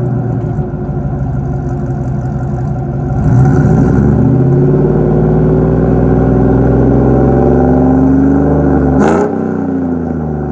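GMC Sierra pickup's aftermarket exhaust: the engine runs low, revs up about three seconds in and is held high, climbing slowly. Near the end the throttle is let off with a sharp pop from the exhaust as the revs drop back to a low, steady run.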